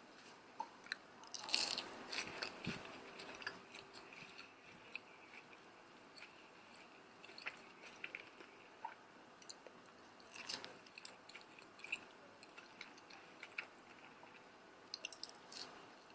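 Biting into and chewing a crispy pan-fried green onion pancake: soft crunches and clicks, with a louder crunchy flurry about two seconds in and another about ten seconds in.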